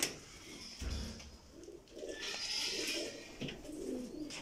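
Domestic pigeons cooing in a loft, a warbling low murmur that swells from about two seconds in. In the first second the loft door's latch clicks and the door thumps as it is opened.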